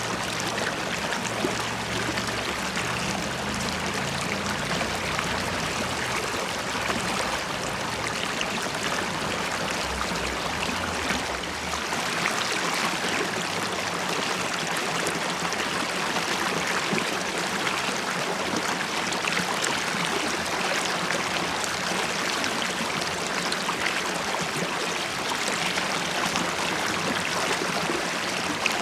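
River water flowing and bubbling in a steady rush. A low rumble underneath fades out about twelve seconds in.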